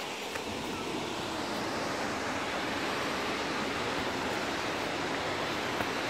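Steady rushing of falling water from a waterfall heard through the forest, a little louder after the first couple of seconds.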